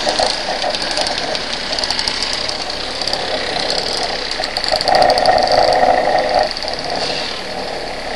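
Two-stroke scooter engines, the camera's own Vespa PX among them, running at low speed in slow traffic. There is a steady noise haze and a fast engine patter. A louder steady note comes in about five seconds in and lasts over a second.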